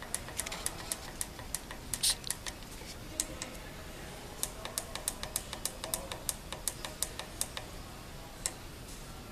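Sharp clicks of the keys on a heat press's digital temperature-and-time controller being pressed over and over, in irregular runs of several clicks a second while the set value is stepped up and down.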